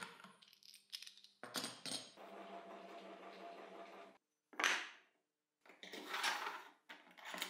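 Metal hold-down clamps clicking and sliding in the aluminium T-slot fence and T-track of a table saw sled. Small clicks at the start are followed by a couple of seconds of sliding. A sharp knock and a short rattle come in the second half as the parts and a wooden block are set down.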